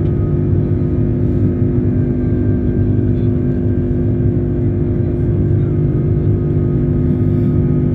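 Airbus A330-200 airliner in operation, its jet engines and airflow giving a steady low rumble with a constant hum and no change in pitch.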